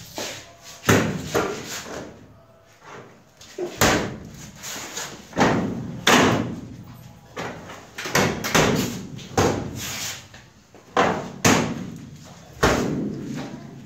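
Aluminium-framed kitchen cabinet doors being opened and shut one after another, each closing a sharp knock with a brief ring, more than a dozen in irregular succession.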